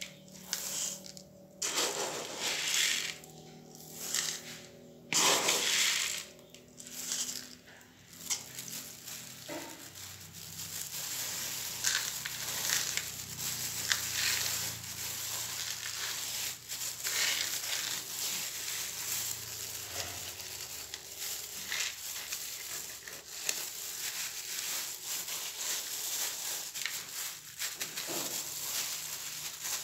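Dry granules rattling and hissing as they are scooped with a plastic cup and poured onto a potted plant's soil, about five separate pours in the first eight seconds. After that, a steady crunching and crackling of granules being spread and rubbed across the pot surface by a hand in a rustling plastic glove.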